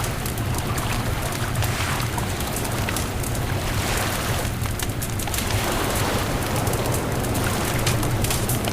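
Beach bonfire crackling, with frequent short pops and snaps, over a steady rush of wind and surf with a constant low rumble.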